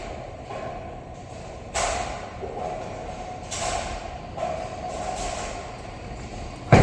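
Bowling alley din with rolling rumble and a few crashes of pins, followed right at the end by a single loud heavy thud, the kind a bowling ball makes landing on the lane.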